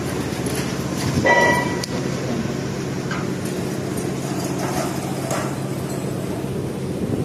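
A machine running with a steady low hum. About a second in there is a short metallic clink that rings briefly.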